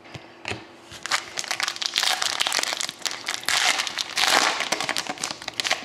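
Foil wrapper of a Panini Select hockey card pack being torn open and crinkled by hand, a dense run of sharp crinkles from about a second in.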